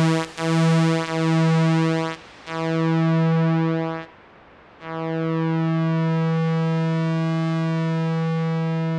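Moog Mother-32 analog synthesizer playing one note over and over, each note longer than the last, with two short breaks. From about five seconds in it holds the note as a steady drone whose tone slowly shifts.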